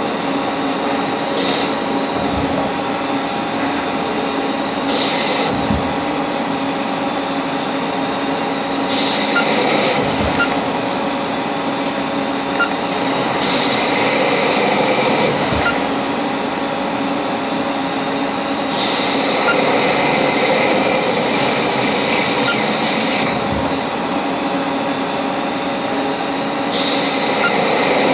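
CNC lathe running through a machining cycle on a yoyo workpiece: a steady machine hum, with several stretches of louder hiss lasting a few seconds each.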